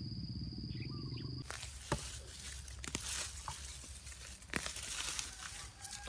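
A steady high insect whine over a fast, low pulsing animal call, which stops abruptly after about a second and a half. Then comes the rustling of leafy weeds being pulled up by the roots by hand, with scattered sharp snaps and crackles.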